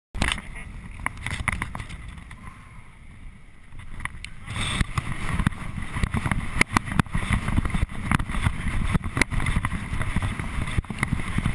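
Storm wind buffeting the camera microphone, a loud irregular low rumble, with frequent knocks from the camera being handled; it grows louder about four and a half seconds in.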